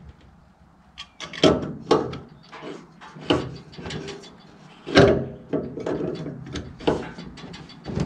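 Tools and fittings being handled: a string of knocks, clicks and rattles, with louder knocks about a second and a half, three and five seconds in, the loudest ringing on briefly.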